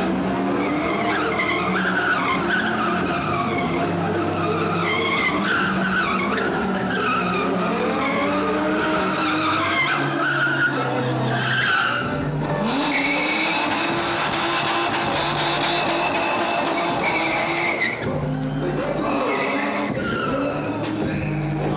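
Cars drifting: engines revving hard while the tyres screech and skid. The sound cuts abruptly twice, once about halfway through and again near the end, as the footage switches between runs.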